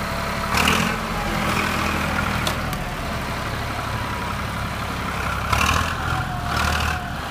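Farm tractor with a front-end loader, its engine running as it drives off, revving up briefly about half a second in and again near the end.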